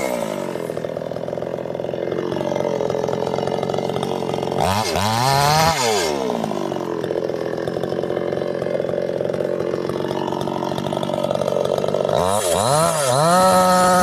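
Two-stroke chainsaw idling, blipped up and back down once about five seconds in. Near the end it is revved to full throttle and cuts into a tree stump, its pitch wavering as the chain bites.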